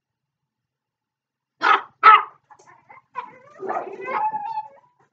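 Dog barking twice in quick succession about a second and a half in, sharp and loud, followed by quieter, longer vocalizing.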